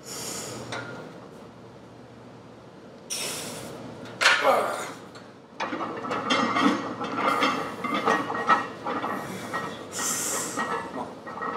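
A powerlifter's forceful hissing breaths and a loud strained grunt about four seconds in as he back-squats a barbell loaded to about 600 pounds. From about six seconds on, a dense clatter and ringing of metal sounds from the loaded bar and plates.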